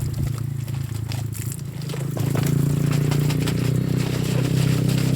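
Scrubbing and scraping on a plastic bottle while washing it, a run of short scratchy clicks, over a steady low hum.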